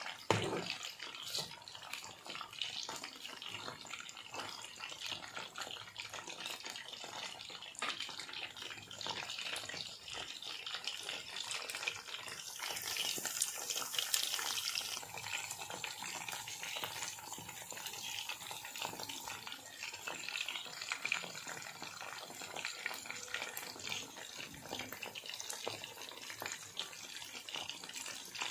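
Chicken wings deep-frying in hot oil in an aluminium pan: a steady sizzle full of small crackles and pops, briefly louder and brighter near the middle.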